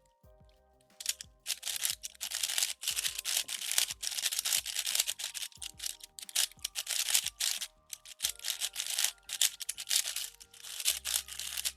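MoYu AoChuang V6 5x5 speed cube being turned rapidly to break it in after fresh lubing: quick, irregular runs of plastic layers clicking and scraping against each other. Background music plays under it.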